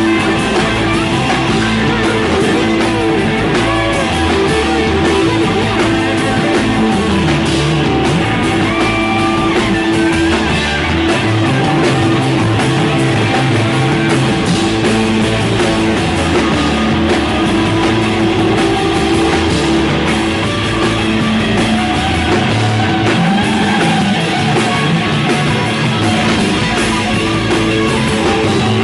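Rock band playing an instrumental passage without vocals: guitar-led, with held notes over a steady bass and drums.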